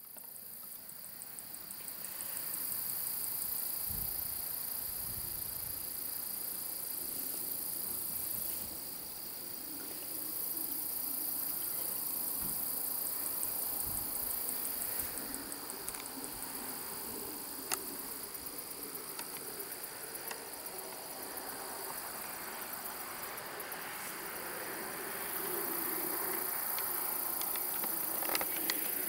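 Insects trilling in a high, fast buzz that swells for stretches of several seconds, fades, and comes back.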